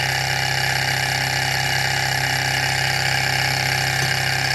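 Sunnytech model Stirling engine running steadily on its alcohol lamp, a fast, even mechanical clatter from its piston and flywheel.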